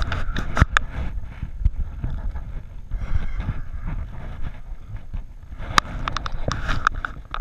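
Wind buffeting an action camera's microphone, with scattered sharp knocks and clicks; the clicks come thickest a couple of times near the start and in a cluster near the end.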